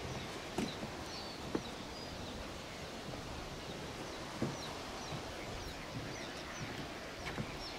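Open-air lakeside ambience: a steady breeze hiss with short, high bird chirps scattered throughout and a few faint knocks.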